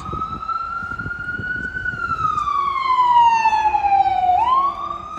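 Ambulance siren wailing. Its pitch climbs slowly for about two seconds, slides down to its low point about four seconds in, then sweeps quickly back up.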